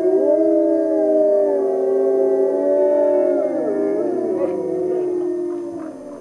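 A group of wolves howling in chorus: several long howls overlap at different pitches, some sliding up and down, with a few shorter calls mixed in, fading near the end.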